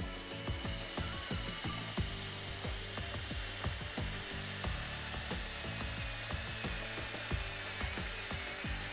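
Cordless drill spinning a stepped pocket-hole bit and boring into a redwood 2x6 through a Kreg Jig Mini pocket-hole jig: a steady whir with many irregular short clicks as the bit cuts.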